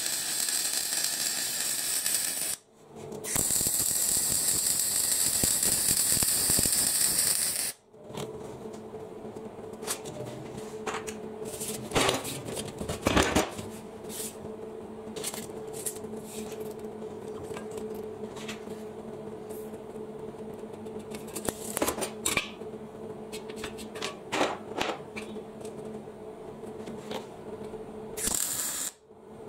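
MIG welding on a steel box-section beam: a crackling, spitting arc hiss in two runs, the second about five seconds long and stopping about eight seconds in. After that come scattered knocks and scrapes as steel parts are handled, over a steady hum, with a brief weld burst near the end.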